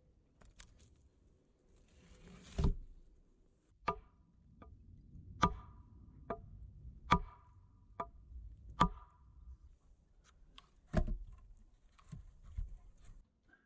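A log set down with a heavy thud, then a hatchet knocking on an upright wooden stake about seven times, evenly spaced under a second apart with a short ringing ring. Near the end, more heavy log thuds as logs are stacked.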